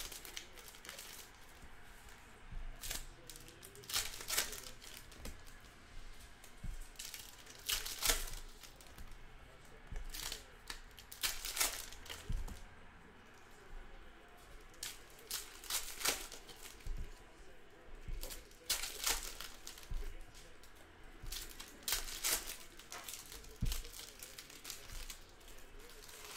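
Wrappers of 2014 Donruss basketball card packs being torn open and crinkled by hand, in short irregular crackles every second or two.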